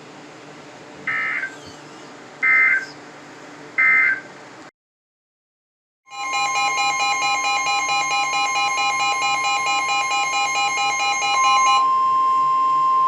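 Weather alert radio on a NOAA Weather Radio channel. First come three short screeching data bursts of the end-of-message code over a steady hiss. After a brief silence, a loud pulsing alert alarm sounds over the steady 1050 Hz warning tone, and the tone carries on alone for the last second or so. This signals that a new warning, a tornado warning, is being broadcast.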